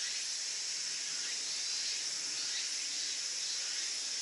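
Steady high-pitched insect chorus, an unbroken shrill hiss that holds level throughout.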